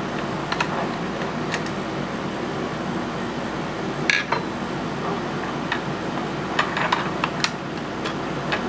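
Scattered light metal clicks and clinks as a mortise lock body is handled and its case opened, over a steady background hum.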